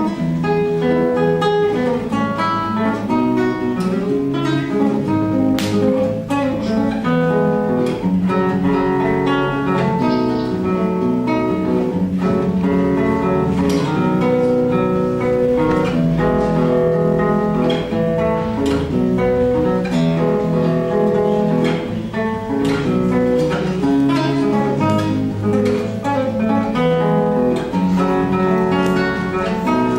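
Live solo instrumental music: a melodic piece played as a steady run of notes with no pauses.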